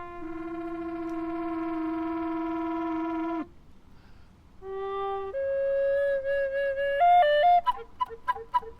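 Solo recorder playing: a long held low note that stops about three and a half seconds in. After a short pause come held notes stepping upward, which break into quick, short, chirping notes near the end.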